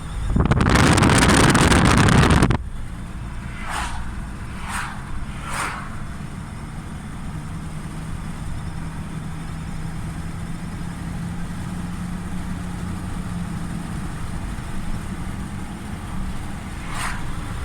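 Mercedes-Benz A 150 (W169) squeaking: three short high squeaks in quick succession about four to six seconds in, and another near the end, over a steady low background. A loud rushing noise runs for about two seconds at the start.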